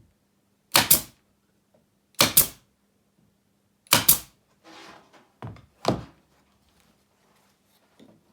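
Hammer blows on wooden roof boards, typical of nailing new boards down: three heavy strikes about a second and a half apart, then a brief scrape and two lighter knocks.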